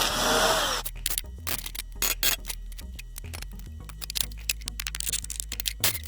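Hand tools clicking and metal clinking in irregular runs as bolts are worked out of a used exhaust system, opening with a short, loud scrape that falls in pitch.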